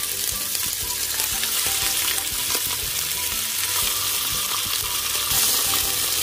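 Raw chicken pieces sizzling and crackling in overheated oil in a stainless steel pot, a steady hiss with many small pops. The oil is too hot, so it spatters hard.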